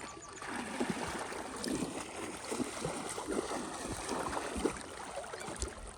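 Shallow water sloshing and lapping in irregular little splashes, with wind noise on the microphone.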